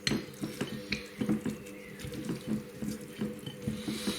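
Raw chicken wings being squished and turned by a gloved hand in a bowl: wet, repeated squelching, several squishes a second.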